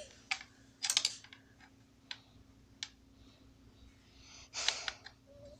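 Light clicks and scrapes of an Allen wrench turning in a screw head: a few separate ticks, with short clusters of clicking about a second in and again near the end.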